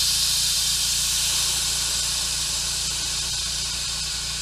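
Air suspension on a lowered VW Golf GTI Mk1 dumping air: a loud hiss of compressed air venting from the air bags as the car drops, fading slowly as the bag pressure falls.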